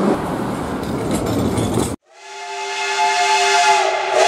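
Steady street traffic noise for about two seconds, then an abrupt cut to a steam locomotive's whistle: one long blast of several tones sounding together, swelling in over about a second and then held.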